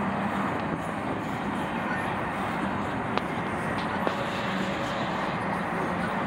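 Doublestack intermodal freight cars rolling past, a steady rumble of steel wheels on rail with a couple of sharp clicks a little past the middle.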